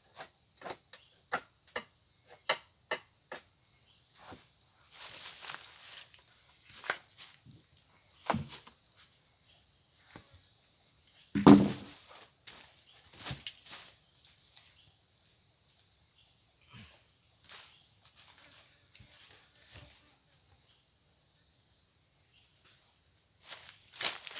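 Insects chirring steadily at a high pitch, with a scatter of sharp knocks and clicks over it: a quick run of them in the first few seconds, and one loud thud about halfway through.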